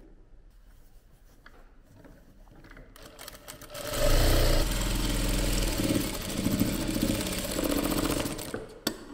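Sewing machine stitching a test seam for about five seconds, starting about three and a half seconds in, with a stretch of reverse (back) stitching. It is the check on a freshly fitted needle: set correctly, the thread does not break when back-stitching.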